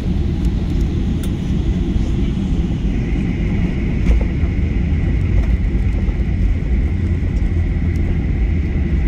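Cabin noise inside a Boeing 737-800 rolling along the runway after touchdown: a steady heavy rumble from the wheels and the CFM56 engines, with a high whine that grows stronger about three seconds in.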